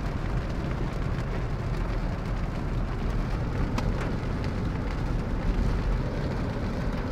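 Torrential rain falling on a moving car, heard from inside the cabin over steady road and engine noise, with a single click about four seconds in.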